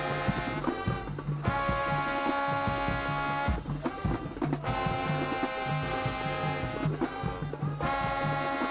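High school marching band playing: the brass holds loud sustained chords in phrases, broken by short breaks about a second in, around three and a half seconds in and near the end, over a steady low beat about twice a second.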